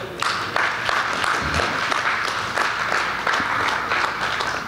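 Church congregation applauding, a steady patter of many hands clapping.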